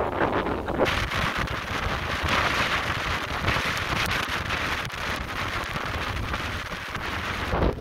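Hurricane wind driving rain and sea spray: a dense, steady hiss with gusts buffeting the microphone underneath. The sound changes abruptly about a second in.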